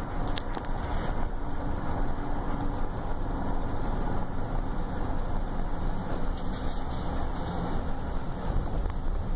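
A vehicle driving slowly on a dirt road, heard from inside the cab: a steady low engine and road rumble, with a few light ticks and rattles about half a second in and again near the middle.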